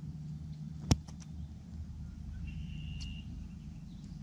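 Small scissors snipping nylon fishing line: one sharp click about a second in, followed by a couple of lighter clicks. A short, steady whistled note follows in the middle, over a steady low rumble.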